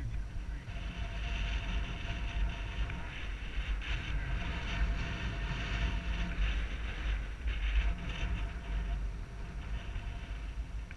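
Wind rumbling on a helmet-mounted action camera's microphone while riding a mountain bike, with the tyres crunching over a gravel dirt road.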